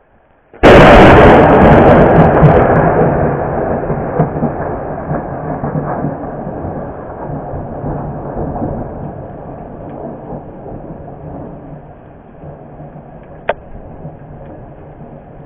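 Thunder from a close lightning strike: a sudden, extremely loud crack about half a second in, then a long rumble that slowly fades away.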